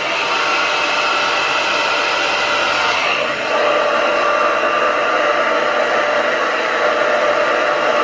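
Black Diamond Professional hair dryer running steadily at speed, a rushing blast of air with a motor whine. The whine's pitch shifts a little about three seconds in.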